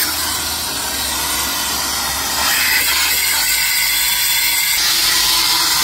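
Propane gas rushing at full flow out of a 1 lb propane cylinder through an open torch-fitting valve, inflating a balloon: a loud, steady hiss that grows a little louder about halfway through.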